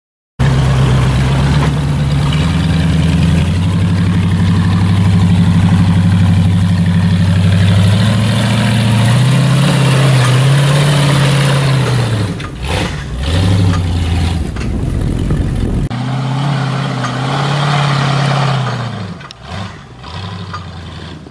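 Jeep CJ rock crawler's engine under hard load climbing a steep rock hill: a steady, loud running note for the first several seconds, then revving up and down in surges, with the revs dropping away briefly about halfway through and again near the end.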